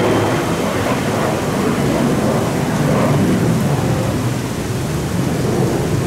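Learjet 60's twin turbofan engines giving a steady low rumble as the jet climbs away into low cloud.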